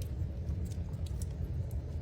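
Fire crackling in a fireplace: scattered sharp pops over a steady low rumble.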